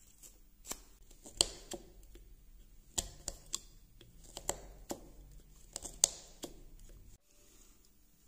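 Carving knife paring chips from a block of soft wood by hand: a string of short, irregular snicks and snaps as each stroke slices through, about a dozen in all. The sound drops out briefly about seven seconds in.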